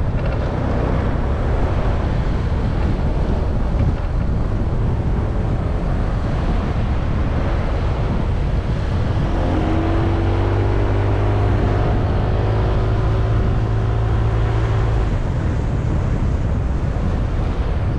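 Motorbike riding along a road: steady wind rush on the GoPro's microphone over the bike's running engine. From about nine to fifteen seconds in, a steady engine tone stands out more clearly.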